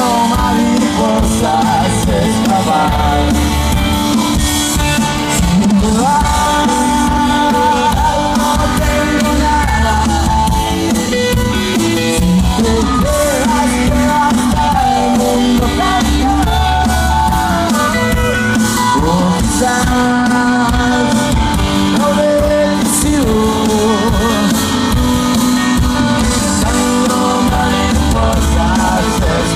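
Rock band playing live: electric guitars, bass and drum kit, loud and without a break.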